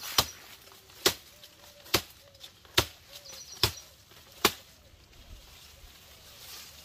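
Wood being chopped: six sharp strikes, a little under one a second, stopping about two-thirds of the way through.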